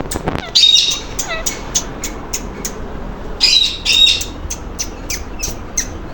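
Pet parrot squawking: two loud, harsh screeches, one about half a second in and another around three and a half to four seconds. Between them come rapid short chirps, about three to four a second.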